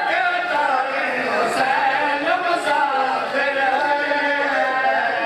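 A crowd of men mourning aloud, many voices crying out and chanting together in overlapping, wavering lines.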